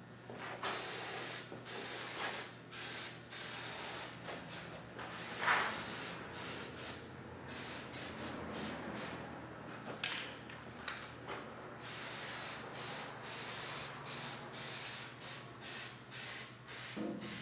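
Aerosol can of high-copper-content weld-through primer spraying in many short hissing bursts with brief pauses between them, coating the seam edges to be plug-welded.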